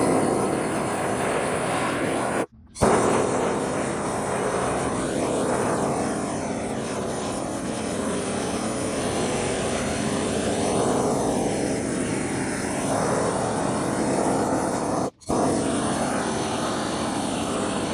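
Propane torch burning with a steady rushing noise as it burns through agricultural landscape fabric. The noise drops out for an instant twice.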